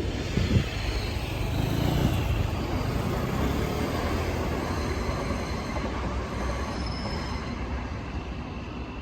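Train passing: a steady rumble that swells about two seconds in and then slowly fades.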